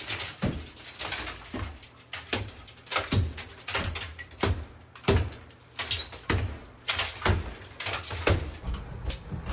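Hand hammer blows in bathroom demolition: a steady run of sharp knocks, about two a second, as tile and fixtures are broken out.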